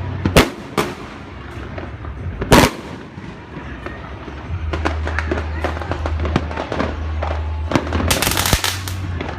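Street fireworks going off: a few sharp bangs in the first three seconds, the loudest about two and a half seconds in, then scattered small cracks and a rapid crackling string near the end.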